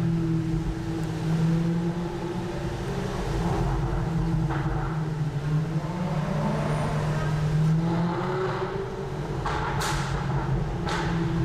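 Range Rover SVR's supercharged V8, with an Overfinch valved exhaust, running at low revs while cruising. The pitch rises a little about halfway through and then settles. A few sharp cracks are heard, about three.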